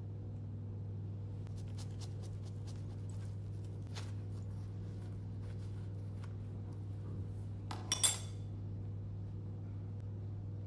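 A knife cutting and scraping the flesh out of a halved eggplant against a wooden board: faint clicks, then a brief louder double scrape about eight seconds in. A steady low hum runs underneath.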